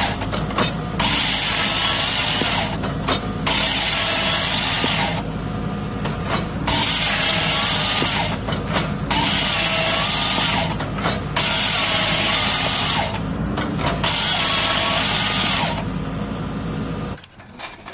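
Excavator-mounted hydraulic grapple saw cutting through logs in repeated bursts of about one and a half to two seconds, over the steady run of the excavator's engine and hydraulics. A whine wavers in the short gaps between cuts, and everything stops shortly before the end.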